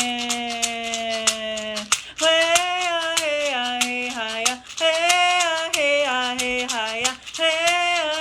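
A woman singing women's hand-drum song vocables in long held notes and falling phrases over a steady, fast hand-drum beat.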